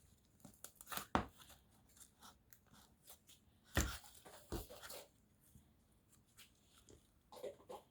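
Handmade slime being worked by hand: scattered sticky crackles and clicks as it is pressed and pulled, the loudest about four seconds in.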